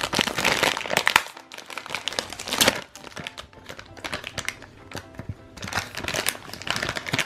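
Plastic blind-bag toy packet crinkling and crumpling in the hands as it is pulled open, in three spells of rustling.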